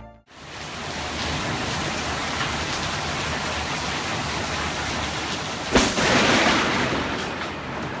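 Heavy rain pouring steadily. A sharp, close thunderclap cracks about six seconds in and rumbles on for a second or two before easing back into the rain.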